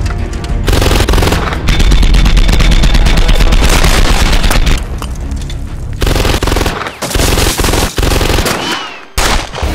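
Rapid automatic gunfire, movie-style: one long burst of fast shots from about a second in to about five seconds, then several shorter bursts broken by brief gaps.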